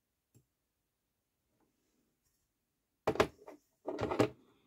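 Near quiet, then from about three seconds in a quick cluster of sharp knocks and clatter, like objects being handled and set down on a desk.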